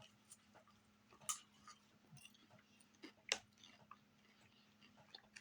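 Faint mouth-close crunching and chewing of popcorn: scattered small crunches, with two sharper ones about a second in and just past three seconds.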